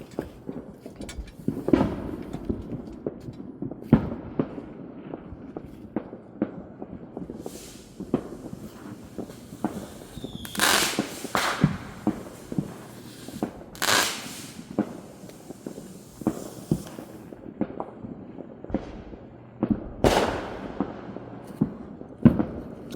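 Fireworks and firecrackers going off: a steady scatter of small pops and crackles throughout, with louder bangs about 11, 14 and 20 seconds in, each trailing off in an echo.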